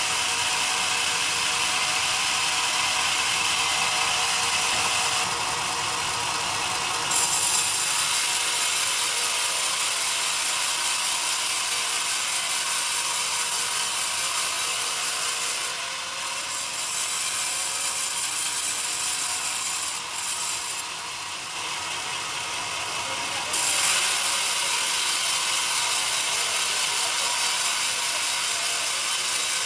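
Log band sawmill running and cutting lengthwise through a young pine log, with a steady high hiss and rattle from the blade and carriage. It gets louder about seven seconds in, dips twice in the middle, and rises again a few seconds before the end.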